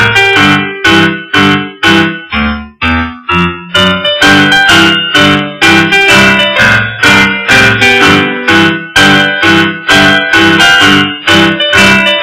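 Background music: a piano playing repeated struck chords and notes in a steady rhythm.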